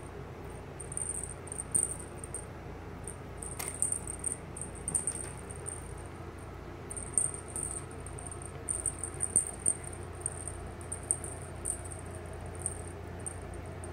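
A cat wand toy being shaken and jerked over a rug for a playing kitten, giving short, irregular high-pitched jingling bursts. A steady low hum runs underneath.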